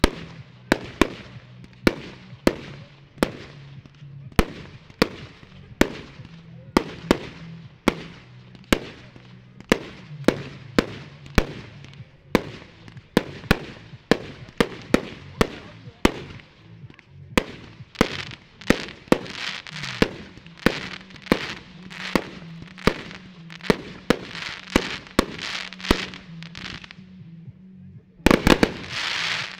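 Aerial firework shells bursting in a steady run of sharp bangs, about one to two a second, with a hiss between the bangs through the second half. Near the end several shells burst together in a quick cluster of loud bangs.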